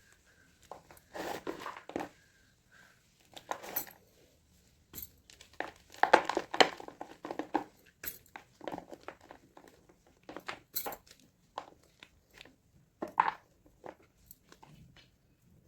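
Blocks of gym chalk being crushed, crunching and crumbling in irregular clusters, with single sharp snaps in between.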